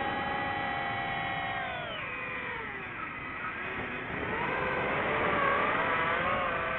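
DJI FPV drone's motors and propellers whining with several tones at once. The pitch slides down about two seconds in as the throttle comes off for the dive, then climbs back and wavers as the drone throttles up to pull out.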